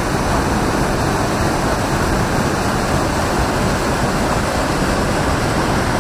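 Small mountain waterfall cascading into a rock pool, a loud, steady rush of water.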